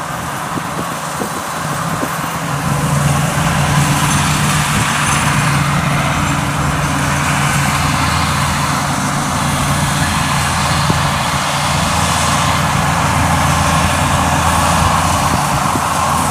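Kubota DC-70 rice combine harvester working through the crop, its engine and machinery giving a steady, low drone under a hiss. It grows louder about three seconds in.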